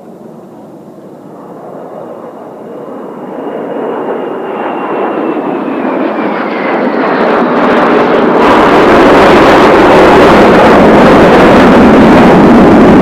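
Four Kawasaki T-4 jet trainers flying in formation through a change-over turn, their F3 turbofans growing steadily louder as they approach. A high whine slides slightly down in pitch as they come in, and from about eight seconds in the jet noise is loud and steady.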